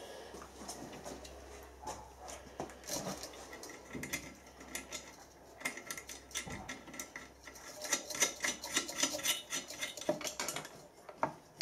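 Light metal clinks and scrapes as a steel angle mounting plate is handled and held against the body of a bench grinder while its bolt holes are lined up. A faint low hum underneath stops about halfway through.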